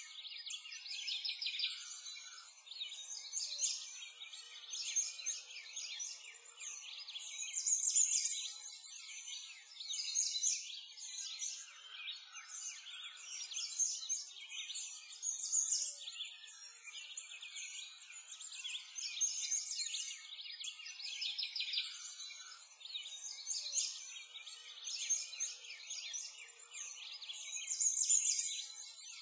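A dense chorus of many songbirds chirping and trilling without a break, swelling and fading every second or two, high-pitched with nothing deep beneath it.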